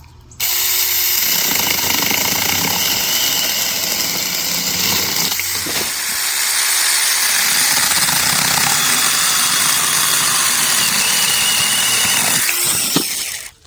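Battery-powered mini electric chainsaw running at full speed as it cuts through a trunk about 3 inches thick. It starts suddenly, runs steadily with a brief dip about five and a half seconds in, then winds down near the end.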